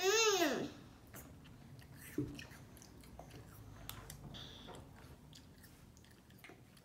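A child chewing a bite of apple ring with small moist clicks and crunches. It opens with a short, loud hum that rises and then falls in pitch.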